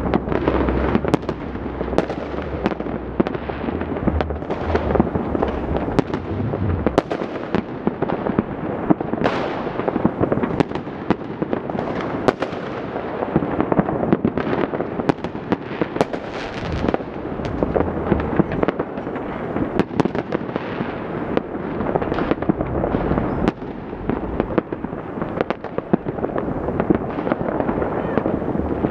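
Many fireworks and firecrackers going off across a city at once: a continuous crackle of bangs and pops with no letup.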